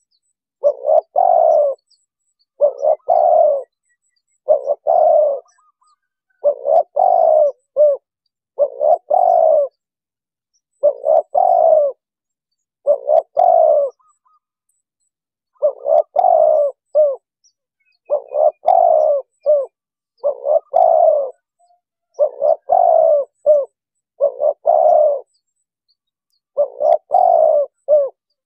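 Spotted dove cooing its repeated phrase, each phrase about a second long, coming about every two seconds, with a longer pause about halfway through and another near the end.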